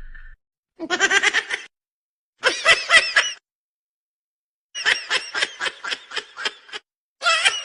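Laughter in four short bursts of rapid, high-pitched pulses, with dead silence between the bursts.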